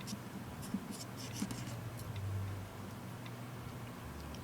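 Small Phillips screwdriver working the tiny screws out of a tablet's motherboard: faint scratchy clicks and scrapes of the bit in the screw heads, mostly in the first couple of seconds, over a steady low hum.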